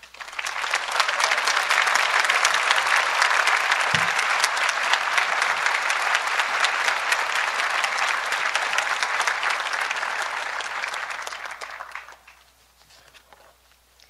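Audience applauding. It swells in at the start, holds steady and dies away about twelve seconds in, with a brief low thump about four seconds in.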